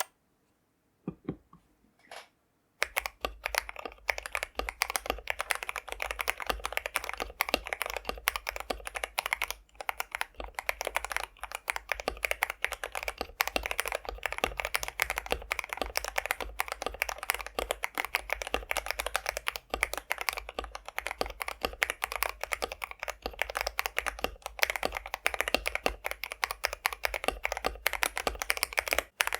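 Typing on a mechanical keyboard with stock, unlubricated Akko CS Jelly Pink linear switches, in a KBD67 Lite R4 with cherry-profile PBT keycaps. A few single keystrokes come first, then continuous fast typing from about three seconds in.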